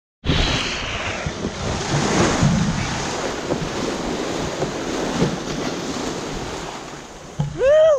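Churning, splashing sea water thrown up by a lunge-feeding whale surfacing right beside a kayak, with wind on the microphone. Near the end comes a short, loud call that rises and falls in pitch.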